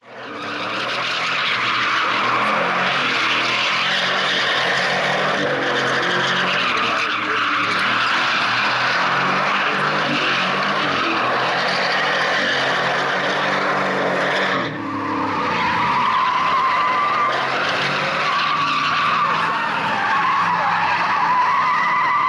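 Pickup truck engine revving hard with its rear tyres spinning and sliding on dirt and gravel, doing donuts. After a brief drop about two-thirds of the way through, a steady high tyre squeal joins the engine.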